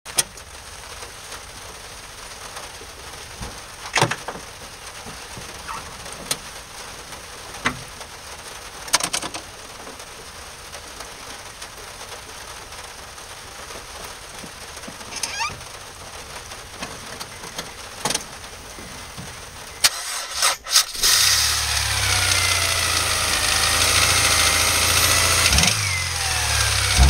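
Honda S2000 four-cylinder engine starting about 20 seconds in, catching at once and then running steadily with a whine above the deep engine hum, its note shifting near the end. Before the start there are only a few scattered clicks against a low hiss.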